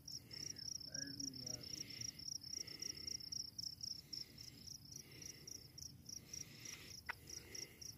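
Crickets chirping steadily in a fast, even pulse of about five high chirps a second. A single brief, quick squeak comes about seven seconds in.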